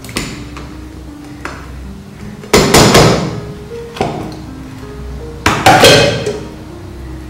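Upturned steel pudding mould knocked and shaken against a plate to loosen the set caramel pudding. There are two loud bursts of rapid knocks, a few seconds apart, with single lighter knocks between them, over background music with a slow melody.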